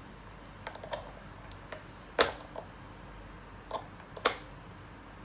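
Sharp, irregular clicks and knocks as the safety valve cap on a Eumax SJ6-4LG steam cleaner's stainless steel boiler is turned a little at a time by a towel-wrapped hand to release the remaining pressure. There are about seven clicks, the loudest about two and four seconds in.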